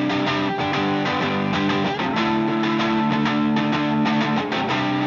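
Background music led by strummed guitar, with held chords over a steady rhythm.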